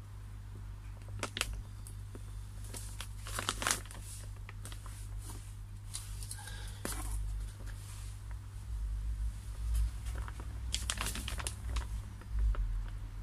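Plastic pond liner crinkling and rustling in short bouts as it is handled, with the crackle of a repair patch's backing being peeled off. The loudest bouts come about three seconds in and again near the end.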